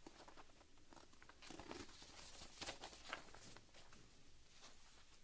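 Near silence in a small room, broken by faint rustling and scattered clicks, with a cluster of them in the middle.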